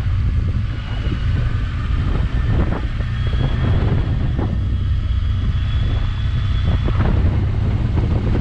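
Motorcycle running downhill, heard from a camera mounted on the bike: a steady low engine rumble mixed with wind buffeting on the microphone.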